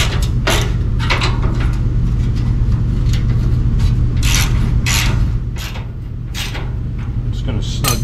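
Hand ratchet wrench driving in the radiator-support bolts in a string of short, irregular ratcheting strokes, over a steady low hum.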